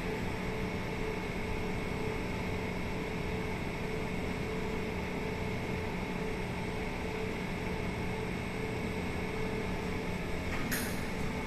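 Steady machinery hum of an elevator landing while a car is called, with a faint steady tone under an even hiss. Near the end comes a brief swish as the car arrives and its doors begin to open.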